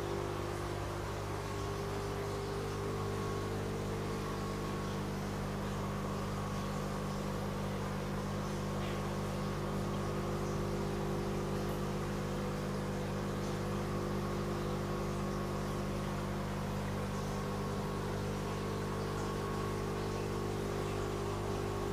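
Aquarium equipment running steadily: pumps give a constant low hum under an even hiss of bubbling and trickling water from air stones and an overhead filter.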